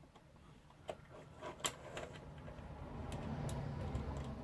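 Faint, scattered small clicks and taps of small drone parts and tools being handled during a repair, with a faint low rumble swelling in the second half.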